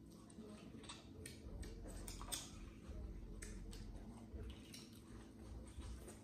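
Eating sounds of boiled crawfish and corn on the cob: crawfish shells cracking and peeling by hand, with biting and chewing, heard as scattered short crackles and clicks, the loudest about two seconds in.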